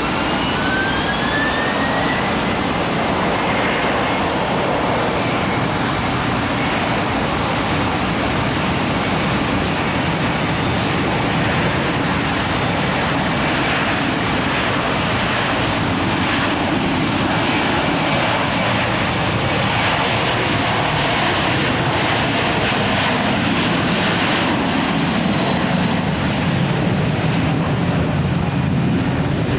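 Jet airliner engines running steadily, with a whine that rises in pitch over the first couple of seconds and then holds.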